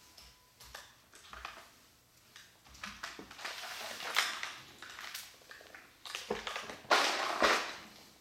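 Irregular clicks and rattles of plastic construction-kit parts, building to two longer rattling runs, the loudest a little before the end.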